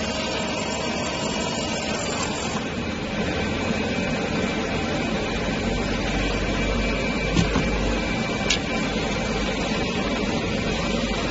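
Laser marking machine running with a steady hum as it marks text onto a metal plate, with a faint high whine over it that stops about three seconds in. Later, two short sharp clicks about a second apart.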